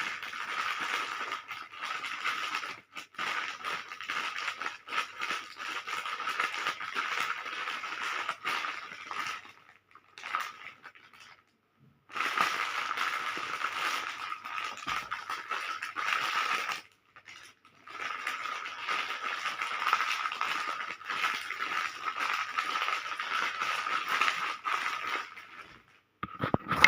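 Wrapped hard candies and lollipops rattling and clattering against each other in their plastic wrappers, in three long spells with short pauses between.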